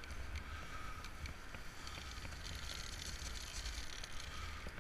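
Wind buffeting a helmet-mounted camera's microphone, a low rumble that swells and fades, with a steady hiss that brightens for a while in the middle.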